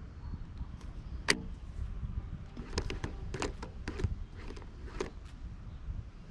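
Handling of a baitcasting reel and rod: one sharp click about a second in, then a run of small clicks and rattles over the next few seconds, over a steady low rumble.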